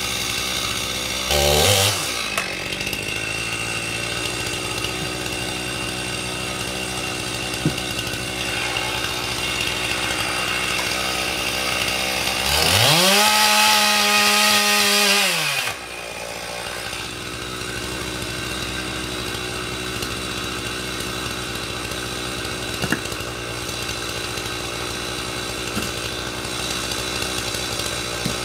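Stihl two-stroke chainsaw idling, blipped briefly about a second and a half in. Around halfway it is run up to full throttle for about three seconds, cutting through a log, then drops back to idle.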